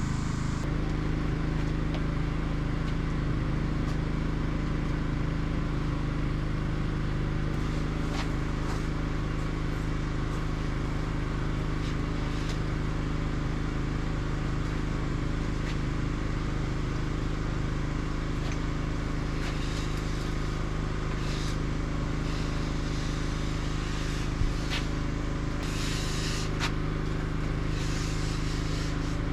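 An engine running steadily at constant speed, with a few faint knocks and scrapes over it.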